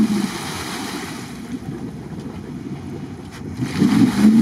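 Jeep Grand Cherokee (WJ) stuck in swamp mud: its engine revs as the tyres spin and churn through mud and water, digging the wheels in. The revs are louder at the start, ease off, then pick up again about four seconds in.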